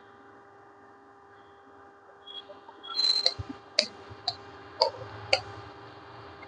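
A metal spoon clinking sharply against a kadhai of frying oil, about five separate clinks in the second half, over a faint steady hum.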